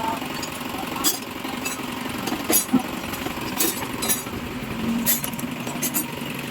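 Isuzu Trooper's 4JX1 diesel engine running with a steady hum. Sharp metallic clicks come over it at irregular intervals, about one a second.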